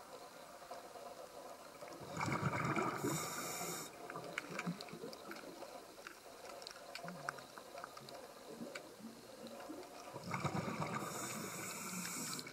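Scuba diver breathing through a regulator underwater: two breaths, about two seconds in and again about ten seconds in, each a burst of hiss and bubbling. Faint clicking and crackling between the breaths.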